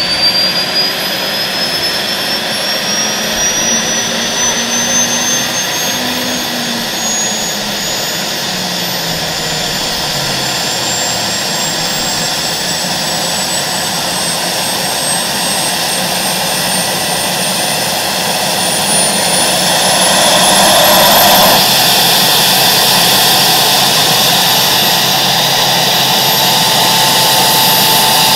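Ghia Streamline X Gilda's AiResearch gas turbine running over a steady rush of air, its high whine climbing slowly in pitch as it spools up. About three-quarters of the way in the whine levels off and the sound gets louder.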